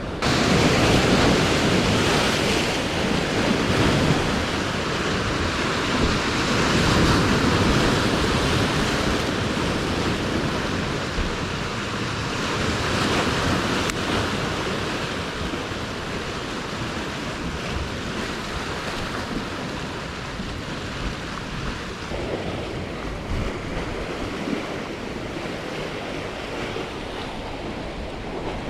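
Sea waves surging and washing among breakwater tetrapods, with wind buffeting the microphone. The wash swells and eases every few seconds, loudest in the first half, then settles quieter.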